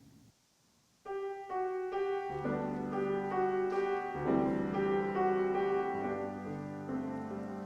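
Piano playing a slow hymn introduction: after a brief silence, single notes enter about a second in and build into fuller sustained chords.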